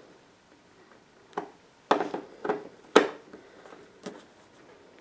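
Pliers clicking and scraping on a copper rivet head as its edge is bent in toward the center to collapse it. About five short sharp clicks come between a second and a half and three seconds in, the last one the loudest, with a few faint ticks after.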